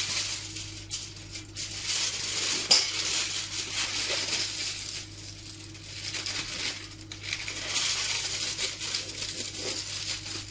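Aluminium foil crinkling and crumpling as it is folded into a loose package and its edges pressed shut, in uneven bursts with brief lulls.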